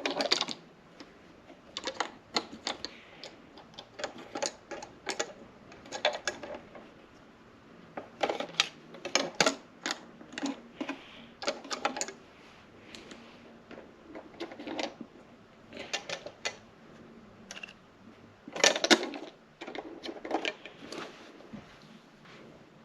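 Irregular clicks, taps and knocks of dolls and small doll accessories being handled and set down on a hard surface, with a louder cluster of knocks about nineteen seconds in.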